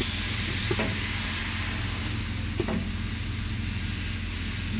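Steady hum and hiss of running automated assembly machinery, with two light knocks, about a second in and again about two and a half seconds in.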